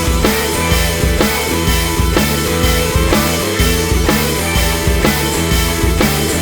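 Background music: an up-tempo rock track with a steady drum beat and sustained guitar and bass.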